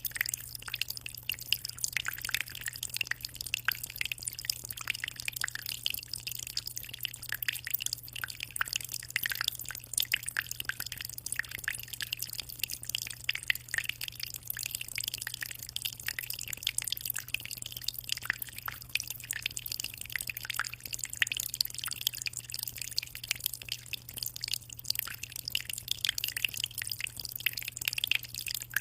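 Aquarium water trickling and splashing in a continuous patter of small drips, with a low steady hum underneath.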